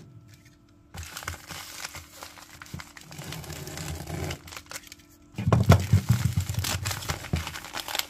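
Plastic mailer bag crinkling as it is cut open and then handled, the rustling getting louder about five seconds in.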